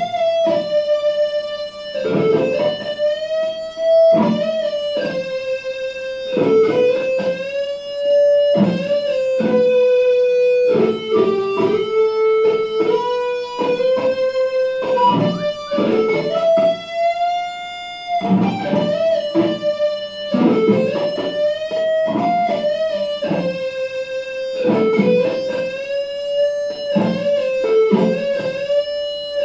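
Les Paul electric guitar played as a single-note blues lead line: picked notes, many held long and some bent up or down in pitch.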